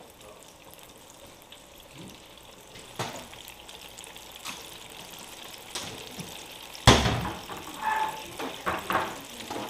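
Breaded catfish fillets deep-frying in peanut oil at about 375 °F in an electric deep fryer: a steady bubbling sizzle. A few knocks are heard, and one loud thump comes about seven seconds in, followed by some clinks near the end.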